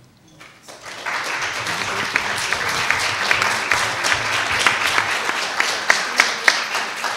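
Audience applauding. It swells in about a second in, with a few sharp, close claps standing out, and begins to fade near the end.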